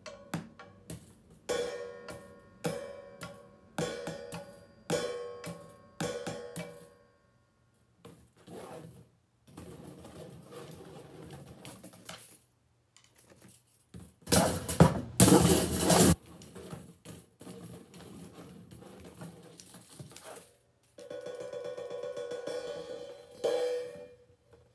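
Marathon cymbal struck with a drumstick about once a second for the first several seconds, each hit left ringing, then played more softly. About halfway through comes a loud, noisy wash of sound about two seconds long. Near the end the cymbal rings steadily, with one more hit.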